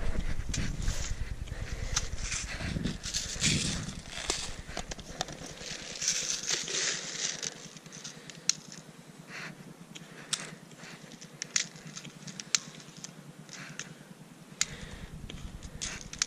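Rustling and crackling of tall grass and dry leaves close to the microphone, louder in the first few seconds, with scattered single sharp clicks later on.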